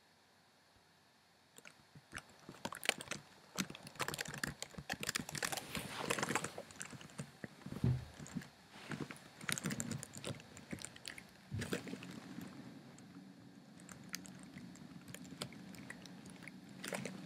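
Computer keyboard being mashed at random: a fast, irregular run of key clicks starting about a second and a half in, thinning out after about twelve seconds, when a low steady hum comes in, with a last flurry near the end.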